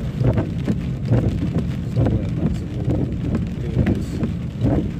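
Inside a car driving on a rain-soaked road: a steady low rumble of engine and tyres on wet tarmac, with recurring low thumps every half second or so.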